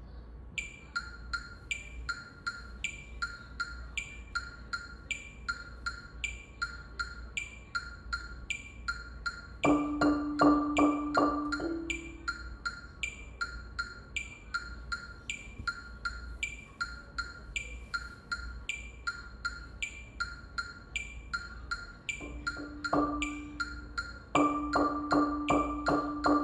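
Steady metronome-like clicking, a little over two clicks a second, throughout. Over it a marimba played with yarn mallets repeats one middle-register note in fast strokes: for about two seconds near the middle, then a couple of single strokes and fast strokes again near the end.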